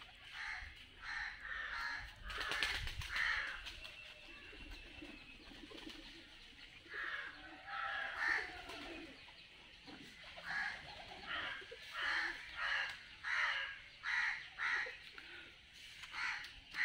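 Birds calling in a tree canopy: a run of short, harsh caw-like calls, one or two a second, more regular and louder in the second half.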